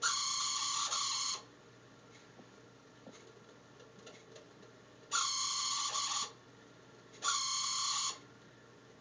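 Heater making a weird high-pitched buzzing tone in three bursts of about a second each, the first at the start, then two close together about five and seven seconds in.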